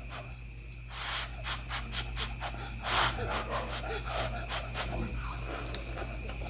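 Close-up eating sounds: quick wet chewing and lip-smacking clicks, with a loud breathy slurp about three seconds in, over a steady low hum.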